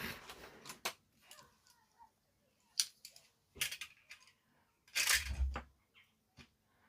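Scattered light clicks and knocks of tools and small plastic parts being handled on a workbench, with a louder rustle and thump about five seconds in.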